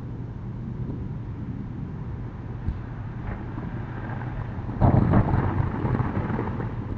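Sliding storm shutters (amado) being run along their track about five seconds in: a sudden loud rattling rumble lasting over a second, over a steady low hum.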